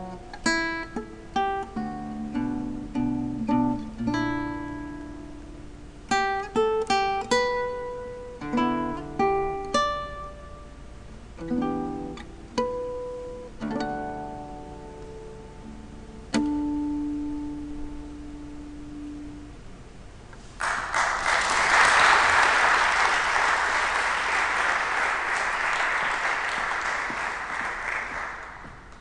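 Solo acoustic guitar playing plucked notes and chords, closing on a held final note. About two-thirds of the way in, audience applause breaks out, then fades away near the end.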